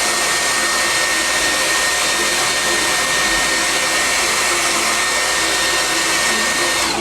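Handheld hair dryer blowing: a steady rush of air with a constant whine. It cuts off just before the end.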